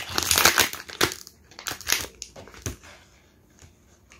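A blind-box figure's thin plastic inner bag crinkling and crunching as it is handled. It is loudest and densest in the first second, then a few shorter rustles follow, and it dies down near the end.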